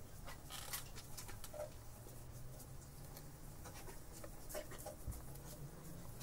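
Screwdriver working a screw in a carburetor body: scattered light metal clicks and scrapes, over a low steady hum.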